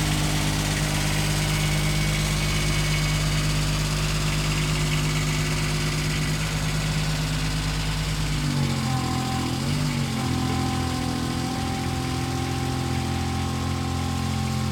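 A bucket truck's pony motor, the small auxiliary engine that drives the boom's hydraulic pump, running steadily at low throttle while the boom is operated. Its note shifts about two-thirds of the way through as the load on it changes.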